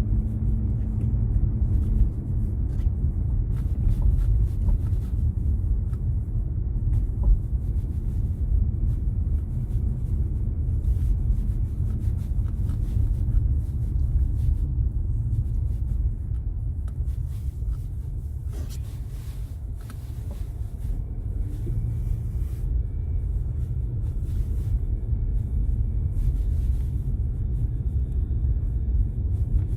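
Car in motion with a steady low road rumble, broken by scattered sharp knocks at irregular intervals. The knocks are ringing knocks from the rear suspension.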